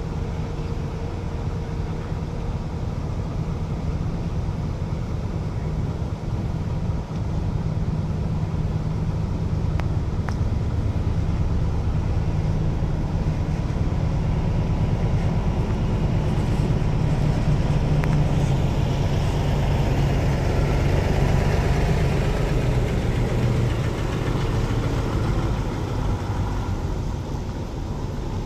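Heavy diesel engines running steadily: a truck-mounted crane's engine as it holds a suspended container, with a container truck's engine growing louder from about eight seconds in as the truck draws in under the load, then easing off near the end.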